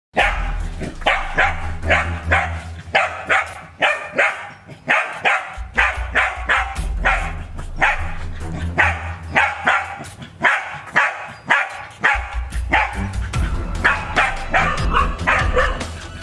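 Dogs barking repeatedly, about two barks a second, at a snake they have cornered, over background music with a steady bass.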